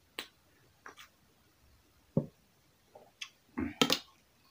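Close-up eating sounds: a drink from a plastic cup, then a metal spoon knocking and scraping in an enamel bowl. They come as a few separate clicks and knocks, with the loudest cluster near the end.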